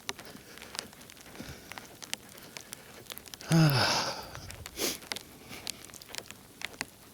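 Footsteps crunching in snow as a person walks, with a short falling grunt-like exhale about three and a half seconds in and a sharp sniff near five seconds.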